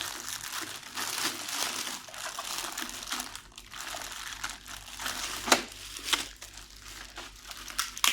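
Plastic packaging crinkling and rustling as it is handled and unwrapped, with a few sharper crackles near the middle.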